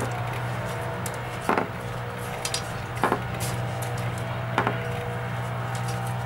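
Steady drone of a road-work engine running, with three sharp knocks about a second and a half apart.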